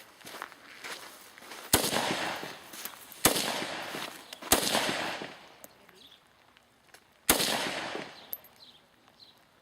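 Four rifle shots at uneven intervals, each followed by about a second of echo dying away.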